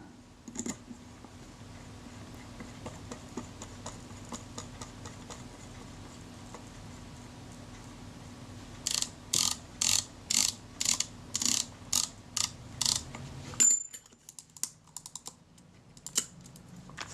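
Small metal clicks from handling the Kodak Retina IIa's refitted film advance lever and top mechanism: a run of about a dozen sharp, evenly spaced clicks, two or three a second, then a few softer ones near the end.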